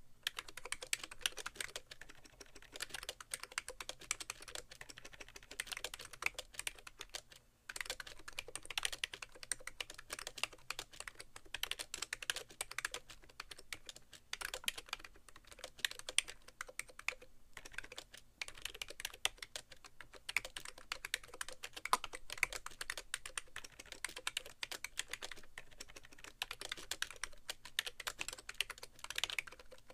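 Fast typing on a BTC 5100C mini keyboard with rubber-dome switches and sliders, at about 80 words per minute: a dense run of keystrokes with brief pauses about a quarter of the way in and again a little past the middle. The board sits bare on a keyboard tray, which gives the strokes a hollow sound.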